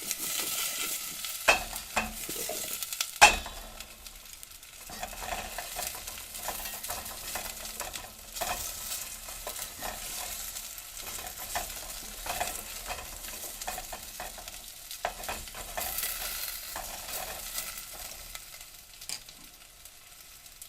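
Carrots frying in hot oil in a pan, a continuous crackling sizzle as they are stirred. A few sharp knocks stand out, the loudest about a second and a half and about three seconds in, and the sizzle fades a little near the end.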